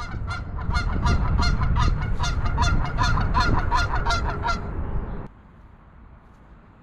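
Canada geese honking over and over, about three calls a second, over a heavy low rumble. The honking cuts off abruptly about five seconds in, leaving faint steady background noise.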